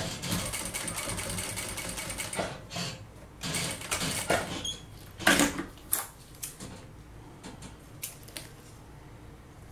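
Sewing machine stitching across the folded synthetic-leather tab at the end of a zipper, running steadily for about two and a half seconds and then stopping. After that come a few clicks and knocks and the rustle of the zipper and fabric being handled and pulled away from the machine.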